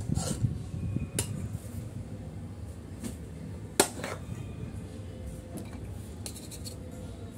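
A serving spoon clinking and scraping against a plate while rice is dished out: a few sharp clinks, the loudest about four seconds in, over soft scraping.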